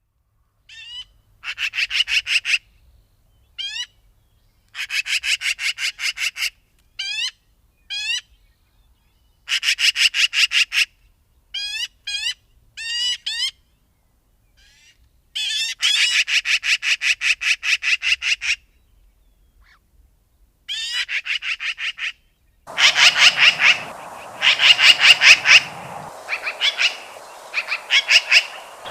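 Magpie chattering: a harsh, rapid rattle of about eight to ten notes a second, given in repeated bursts of one to three seconds with short pauses between. From about two-thirds of the way in, a steady background noise and low hum lie under the rattles.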